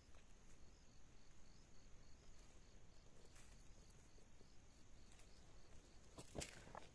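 Near silence: faint insect chirping with a steady high hum behind it, and a few soft rustles and clicks of hands working garden soil about six seconds in.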